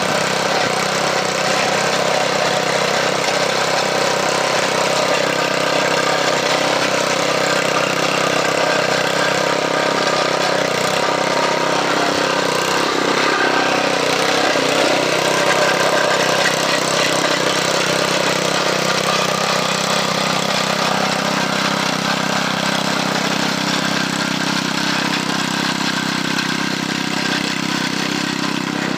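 Old garden tiller's small gasoline engine running steadily while tilling soil, its note shifting a little about two-thirds of the way in.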